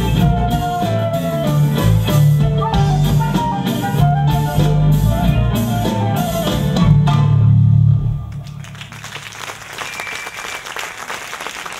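A small live band with flute, violin and drums plays the closing bars of a song, ending on a loud held chord about eight seconds in. The audience then applauds.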